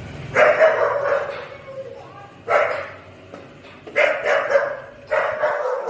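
Dog barking: four loud barks spaced about a second and a half apart.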